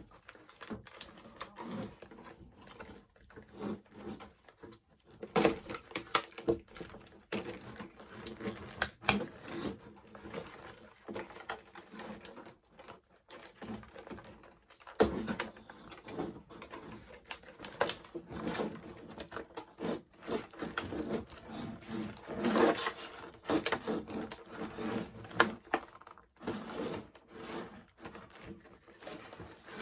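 Doll packaging being handled: a run of irregular clicks, crinkles and rattles of plastic and cardboard as the doll is worked free of its box, with louder bursts of handling now and then.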